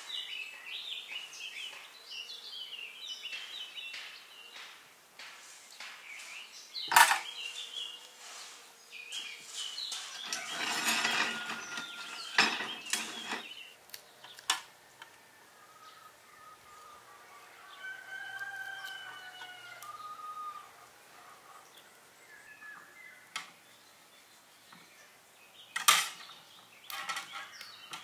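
Songbirds chirping, with sharp knocks and handling noise from a plucked rooster being cut up with a knife on a tray. About two-thirds of the way through, a rooster crows for a couple of seconds.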